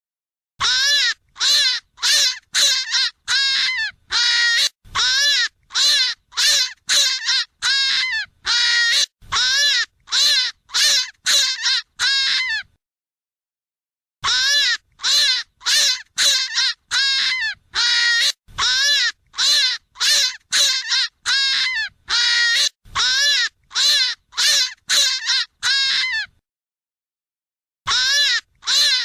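A rapid series of short animal calls, each rising and falling in pitch, about two a second. The run breaks off twice into dead silence for about a second and a half.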